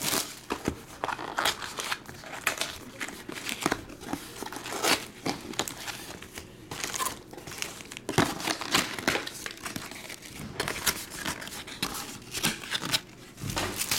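Clear plastic wrap crinkling and tearing as it is pulled off a trading-card retail box, followed by foil card packs rustling and clicking as they are handled and stacked. The sound is a dense, irregular run of crackles and rustles.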